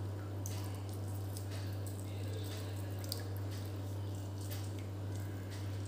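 Half a lemon squeezed by hand, its juice dripping into a pan of thin gravy in faint drips and squelches, over a steady low hum.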